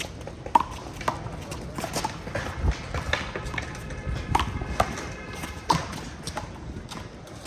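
A rubber handball being slapped by hand and smacking off the wall during a one-wall handball rally: a string of sharp, irregularly spaced smacks.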